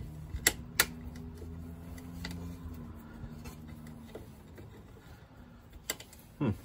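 A few sharp metal clicks and taps from working a stubborn screw into the fuel door's hinge mount, over a low steady hum that fades out about four seconds in.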